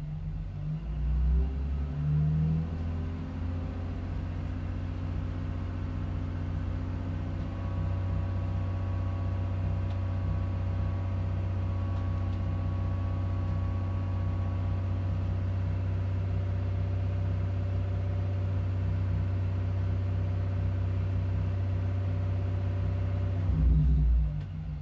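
BMW E46 engine at operating temperature, revved up from idle to about 2000 RPM over a couple of seconds and held there steadily for about twenty seconds. Near the end it drops back to idle with a short louder swell. Heard from the driver's seat.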